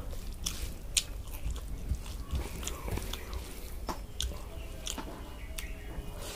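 Close-up eating sounds: a person chewing rice, with scattered wet mouth clicks and smacks, the sharpest about a second in, while fingers squish rice mixed with dal on the plate.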